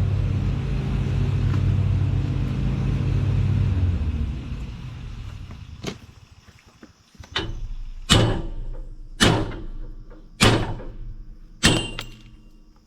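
An engine running steadily, fading away about four to six seconds in. Then six sharp blows on metal, about a second apart, each ringing briefly, as a stuck part is knocked loose.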